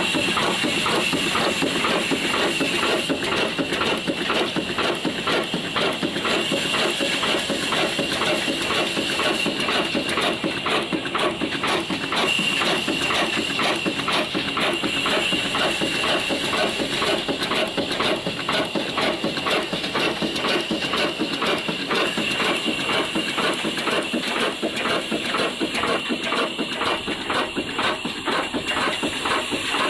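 Ruston Hornsby diesel engine running steadily with a fast, even beat of exhaust and combustion thumps, with a steady high whine over it.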